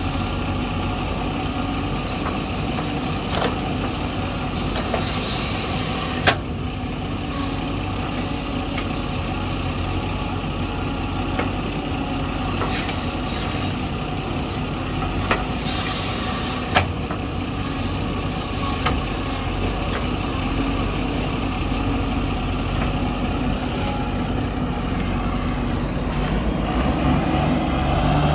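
Heavy diesel engine running steadily, with a few sharp knocks scattered through it and a slight rise in level near the end.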